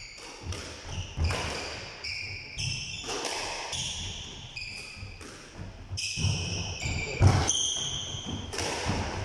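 A squash rally: the ball is struck and hits the walls with irregular sharp knocks, mixed with short high squeaks of shoes on the court floor.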